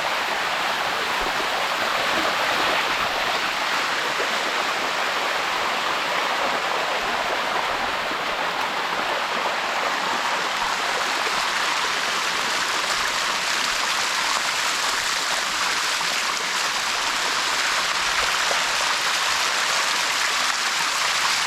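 Water of a waterfall rushing and splashing over rock: a steady, even rush.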